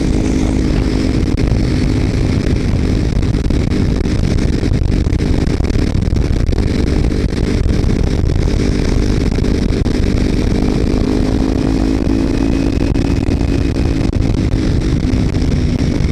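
Kawasaki Ninja 300's parallel-twin engine breathing through a Screaming Demon slip-on exhaust with its baffle removed, running at a fairly steady cruise with small rises and falls in pitch. Heavy wind rush on the helmet-mounted microphone.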